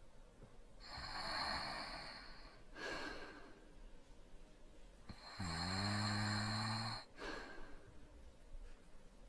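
Light snoring from someone asleep: slow, breathy breaths, then about halfway through one louder, low-pitched snore lasting about a second and a half.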